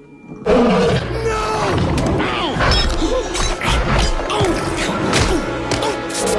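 Animated-film soundtrack: orchestral action music with crashes and thuds, and many short gliding cries over it. It starts suddenly about half a second in.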